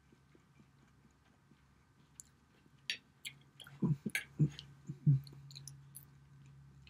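Quiet chewing, then a metal fork clicking and scraping against a ceramic baking dish a few times about three to four seconds in as a piece of baked cheese omelet is cut, with soft mouth sounds after.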